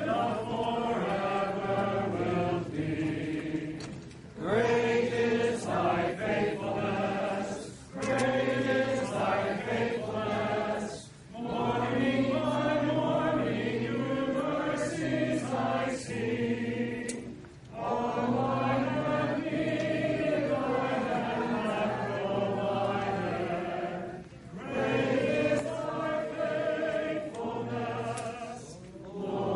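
A group of voices singing together in long held phrases, with short breaks between phrases every few seconds.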